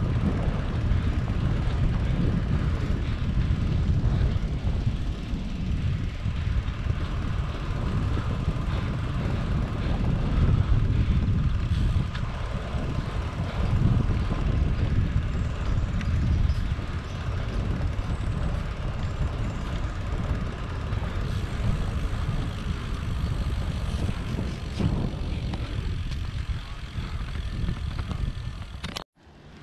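Steady, fluctuating rumble of wind on the microphone during a bicycle ride, with no voices. It cuts off abruptly near the end.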